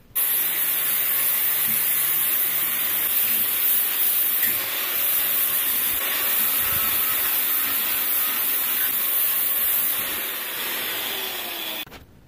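Electric angle grinder with a flap disc grinding rust off a steel NA Miata suspension control arm: a steady, loud grinding hiss that starts suddenly and cuts off abruptly near the end.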